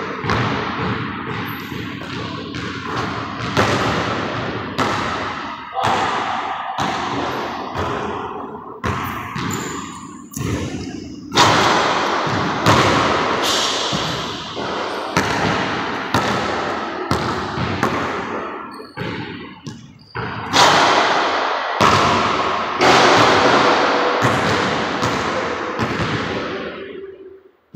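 Basketball dribbled and bouncing on a hardwood gym floor, with shots striking the backboard and rim. The thuds come irregularly, sometimes in quick runs, each echoing in the large hall.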